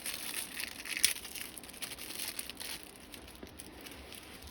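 Plastic packaging crinkling as it is handled, with a sharp click about a second in. The rustling thins out in the second half.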